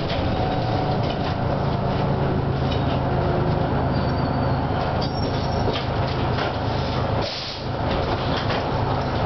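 Detroit Diesel 6V71N two-stroke V6 diesel of a 1987 GM Classic transit bus running steadily under way, heard from inside the cabin with interior rattles. The engine note dips briefly about seven seconds in.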